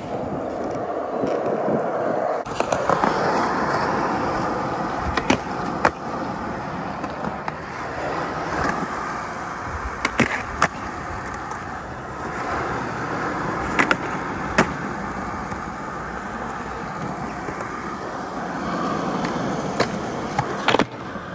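Skateboard wheels rolling over concrete, broken by a dozen or so sharp clacks of the deck popping and landing and of the board striking a concrete ledge, several of them in pairs about half a second apart.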